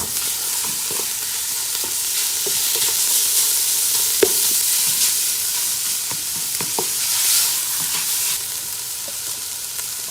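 Lemongrass paste and young tamarind sizzling in hot oil over high heat, with a steady hiss. They are stirred, the utensil knocking and scraping against the pot now and then, loudest once about four seconds in.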